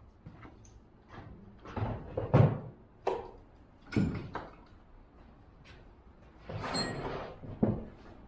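Irregular knocks and clatter of a chainsaw powerhead and tools being handled on a work surface, with one louder knock about two and a half seconds in and a short rushing hiss near the end.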